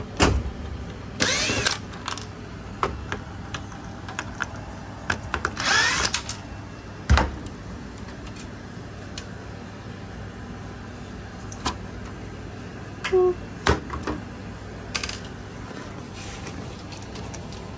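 Cordless drill running in two short spells, about a second in and near six seconds, each with a rising motor whine, as the screws holding the washer's water valve are driven out. Between them come clicks and knocks of plastic parts and the valve being handled, with one heavier knock about seven seconds in.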